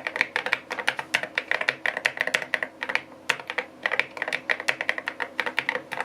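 KiiBOOM Phantom81 Lite mechanical keyboard being typed on steadily, a fast run of keystroke clacks with a couple of brief pauses in the middle.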